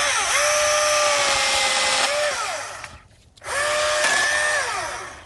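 Milwaukee M18 FUEL 16-inch battery chainsaw running in two bursts, cutting up tree limbs. It gives a steady electric motor whine at full speed, and the pitch dips and winds down as the trigger is released about two seconds in. The whine starts again a little past halfway and winds down near the end.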